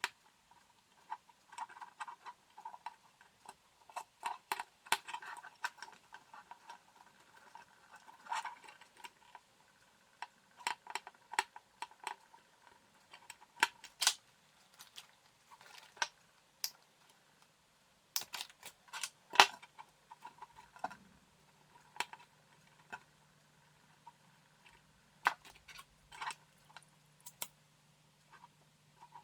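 Irregular small clicks and taps of plastic plug parts, electrical cable and hand tools being handled while a power plug is rewired, with a few sharper knocks in the middle. A faint low hum comes in about halfway through.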